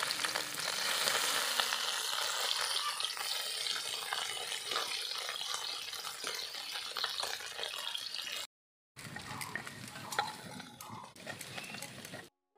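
Small boroli fish sizzling as they fry in hot oil in a steel wok, with the scrape of a metal spatula turning them. The frying hiss is steady at first, then cuts out briefly about two-thirds of the way through and comes back quieter.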